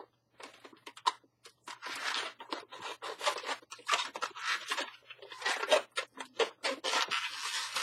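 Yellow latex twisting balloons squeaking and rubbing against each other and against hands as they are twisted and handled, in irregular short strokes that grow busier after the first second or so. The balloons carry almost none of their usual powder, so the rubber grabs and squeaks.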